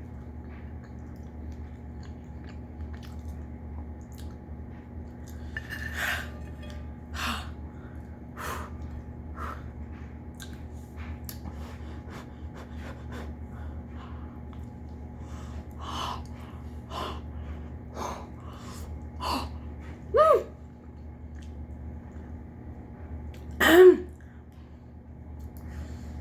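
Close-up chewing and mouth sounds of a person eating a burrito: scattered wet smacks and clicks over a steady low hum, with two louder short mouth or throat sounds near the end.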